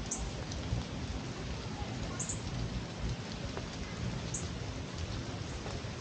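Steady rain falling, with a few short, high bird chirps, two of them doubled.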